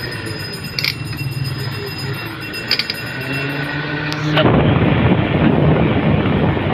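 Replacement electric cooling-fan motor of a Honda City radiator/AC fan running on a test hookup, a steady hum with a couple of light clicks. About four seconds in, a loud rush of air from the fan blows across the microphone: the fan is blowing strongly.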